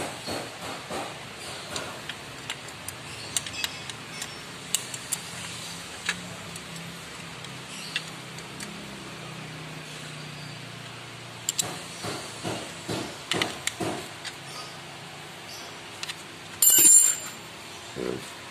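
Small hand wrench clicking and tapping on the bolts of a freshly fitted oil pan as they are tightened, in scattered short metallic ticks over a steady background hiss. Near the end there is one louder ringing metal clink.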